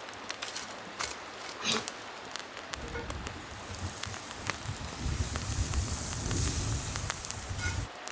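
Wood campfire crackling and popping with sharp snaps, then from about halfway a rising hiss as butter sizzles in a hot cast-iron skillet on the coals, with a low rumble under it near the end.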